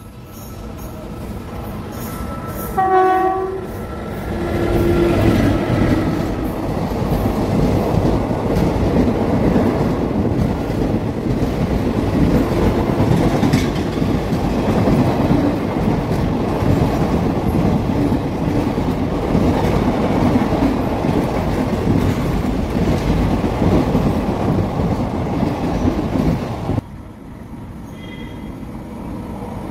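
An express passenger train hauled by a WAP-4 electric locomotive sounds its horn briefly about three seconds in, then runs through the station at speed: a long, loud, steady rush of wheels and coaches on the rails. Near the end the sound cuts suddenly to a much quieter background.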